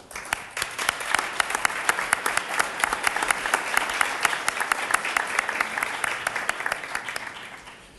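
Audience applauding: many quick claps that start at once, hold steady, and die away near the end.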